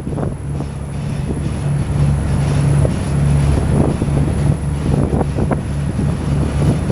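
A boat's engine running steadily: a continuous low hum with a slight regular pulse.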